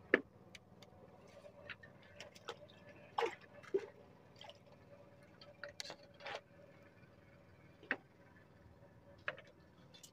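Scattered small drips and clicks, about a dozen irregular ones, over a faint steady hum.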